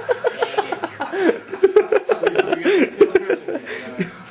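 People laughing hard, with rapid rhythmic chuckles, plus a few light clicks in the middle.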